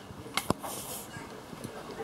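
Compression tester being handled: two sharp clicks about half a second in, then a short hiss of air as the gauge pressure is let off after the reading. Faint rustling and scraping follow as the hose adapter is worked out of the spark-plug hole.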